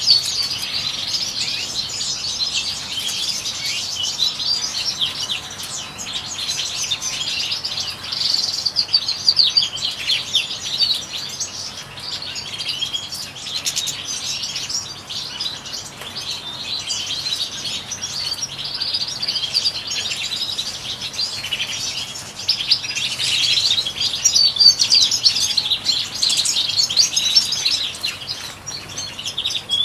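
Several European goldfinches chirping and twittering without a break, a dense chatter of quick high calls.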